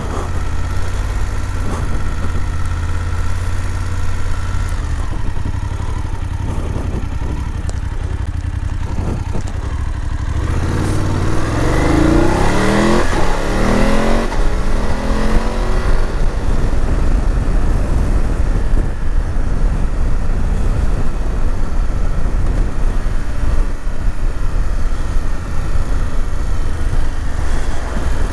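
Motorcycle engine running under way at low speed, with wind rumble on the helmet microphone. About eleven seconds in, the engine note rises in pitch for several seconds before settling back to a steady run.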